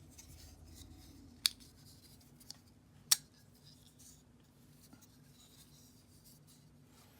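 Kizer Varatas folding knife being handled, with faint rubbing and two sharp metallic clicks about a second and a half apart, the second the louder, as the blade and lock move.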